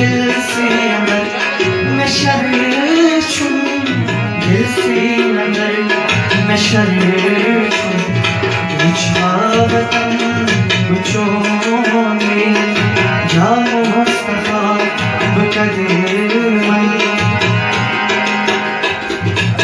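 Tabla and harmonium playing an instrumental passage of a devotional song: a steady tabla rhythm under the harmonium's melody line.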